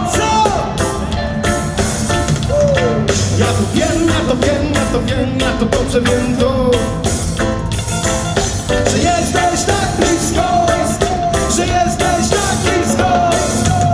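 Live reggae band playing at full volume: drums, bass, electric guitars and a horn section of saxophone and trumpet, with a gliding melody line over the steady beat.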